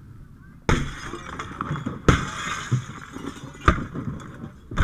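Window glass being broken out with a firefighter's hand tool for ventilation: four sharp strikes, the first two followed by glass shattering and falling.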